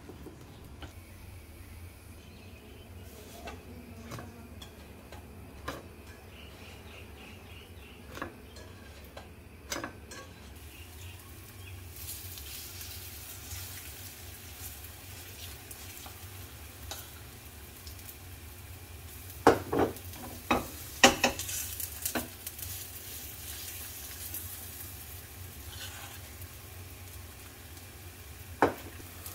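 A fork stirring thick fritter batter in an enamel bowl, with light clicks against the bowl. After about ten seconds, oil sizzling steadily in a frying pan as batter is spooned in, with a cluster of sharp utensil knocks on the pan about two-thirds through and one more near the end.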